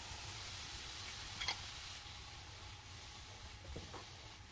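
Food sizzling in hot oil, a steady hiss that slowly fades, with a sharp click about a second and a half in and a soft knock near the end.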